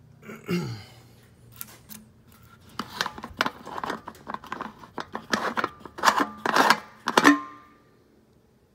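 A fuel-tank cap on a small diesel engine being unscrewed by hand: a quick run of rasping clicks and scrapes as the threads turn and the cap rubs, loudest about six to seven seconds in.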